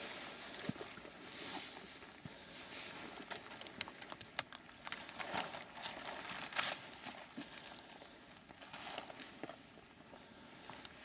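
Rustling and crinkling of clothing, gear and brush with footsteps on rocky ground as a hunter moves and handles his kit, with a few sharp clicks, the loudest about four seconds in.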